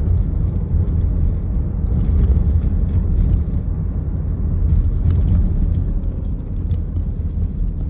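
Steady low road rumble of a car being driven, with a few faint ticks.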